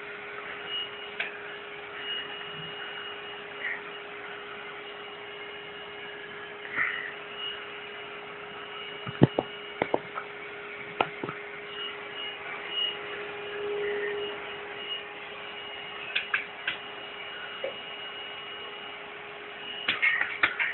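A steady electrical hum with scattered sharp taps and knocks, the loudest cluster about nine to eleven seconds in, typical of a cat batting at a vacuum cleaner with its paw.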